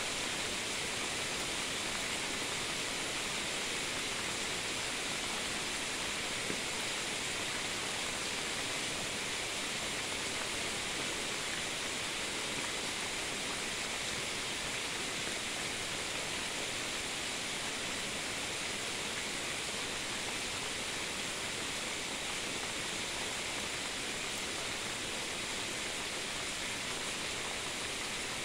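Steady rain falling, an even hiss that holds at one level throughout, with no thunder.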